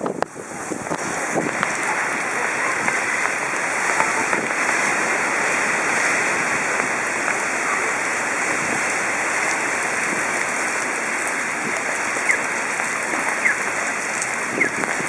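Heavy wind-driven rain pouring down steadily, a dense even hiss, with a few sharp ticks near the end.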